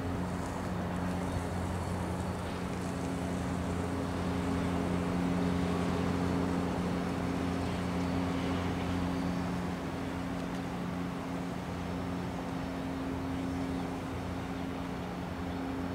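Diesel locomotive engine running steadily, a low hum with a few held tones.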